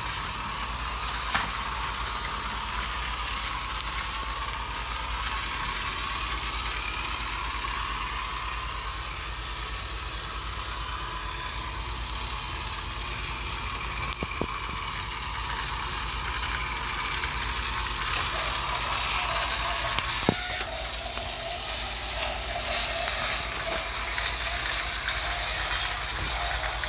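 Battery-powered Fisher-Price GeoTrax toy train running along plastic track: a steady whir from its small electric motor and gears, broken by a few sharp clicks, with the tone of the whir shifting after a click about two-thirds of the way through.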